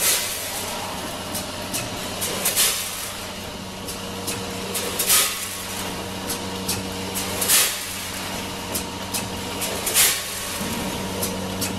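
Packaging line of a multihead weigher and vertical bagging machine running: a steady machine hum with light clicking, and a sharp hiss of compressed air about every two and a half seconds as the bagger cycles.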